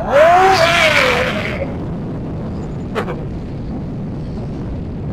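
Steady wind rush and engine and road noise from a motorcycle riding at about 60 km/h. At the start a loud pitched cry rises and then falls for about a second and a half. A sharp click comes about three seconds in.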